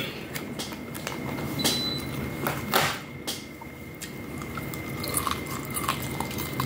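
A person biting into and chewing a piece of fried pork close to the microphone: a run of short mouth clicks and smacks, the loudest about three seconds in.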